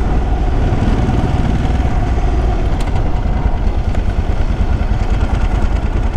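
Ducati motorcycle engine running steadily at low revs as the bike slows down, with wind rushing over the microphone.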